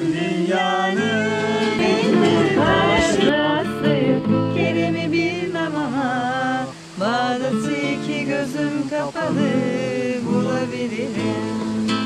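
A woman singing while strumming an acoustic guitar, with a short break in the phrase about seven seconds in.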